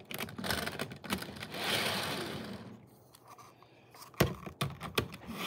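Plastic model train cars being handled on the track: light clicks and knocks, a scraping slide lasting about a second, then a few sharp clicks near the end.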